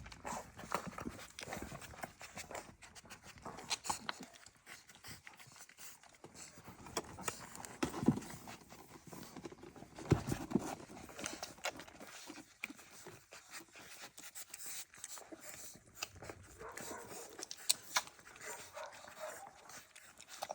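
A dog panting, with scattered short clicks and small noises.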